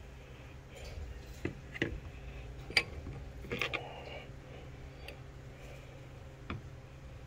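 About seven light clicks and taps at uneven spacing, over a low steady hum.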